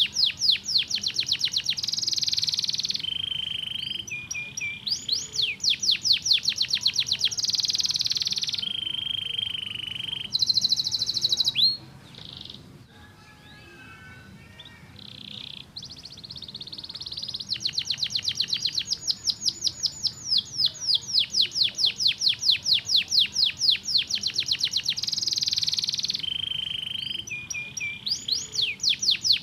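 Canary singing: fast rolling trills of rapidly repeated notes alternating with held whistled notes, with a quieter stretch of softer chirps about halfway through.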